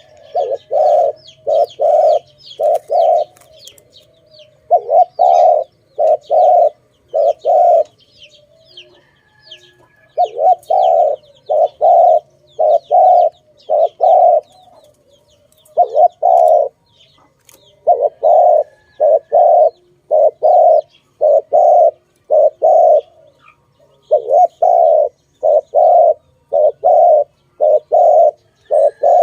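Spotted dove (tekukur) cooing, a run of low coo notes repeated in phrases of three to five with short pauses between, while small birds chirp faintly in the background.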